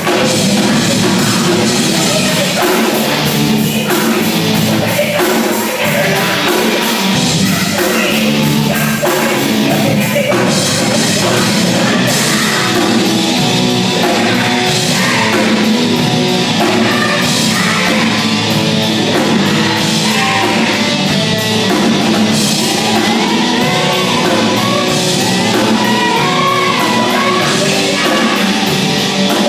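Live rock band playing loud, with drum kit, electric guitars and keyboard, and a singer's voice over them.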